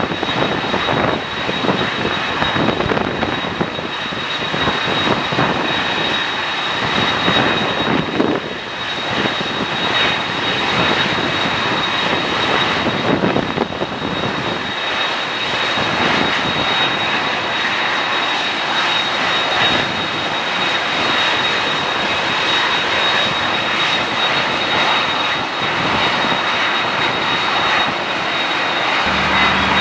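Airliner engines running loud and steady: a dense rushing noise with a thin, steady high-pitched whine on top.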